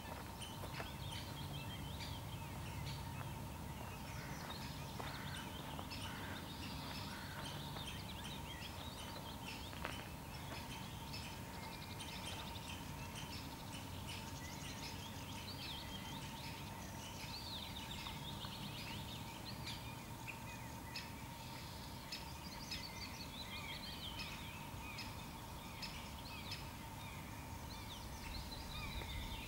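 Early-morning chorus of songbirds: many overlapping chirps, trills and whistles all through, over a steady low background rumble and a faint steady tone.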